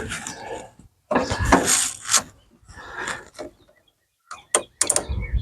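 Hand-work noises on the mower's fuel line: rustling and knocks, then several sharp clicks near the end, as of pliers and spring hose clamps being worked.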